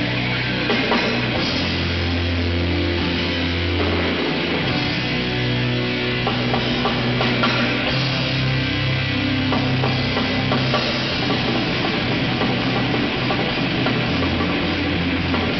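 Live rock band playing: amplified electric guitars over a drum kit, continuous and loud.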